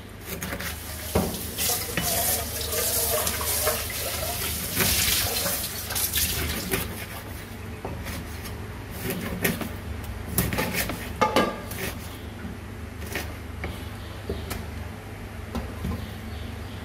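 Kitchen knife slicing grass carp fillet and knocking on a plastic cutting board in irregular strokes, over a low steady hum. A steady hiss joins in from about two to six seconds in.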